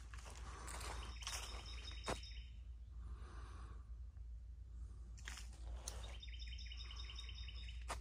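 Footsteps on a dry leaf-litter trail, each step a short sharp scuff, with a bird singing a high, rapid trill twice in the background.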